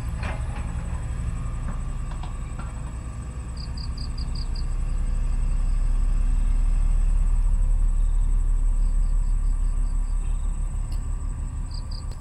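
A low rumble that swells to its loudest about halfway through and fades again toward the end. A few short runs of quick, high chirps sit over it.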